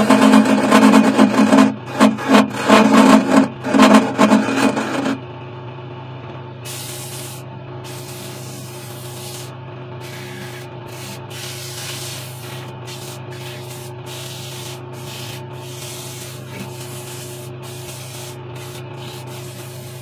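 A pine table leg spinning on a wood lathe while being sanded by hand: loud, rough rubbing for about the first five seconds, then the lathe's steady motor hum with lighter, intermittent hissing strokes of the sandpaper.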